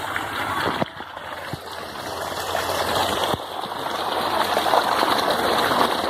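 Water gushing out of a split in a tree trunk in a steady, rushing stream. The level drops sharply about a second in and then gradually builds back.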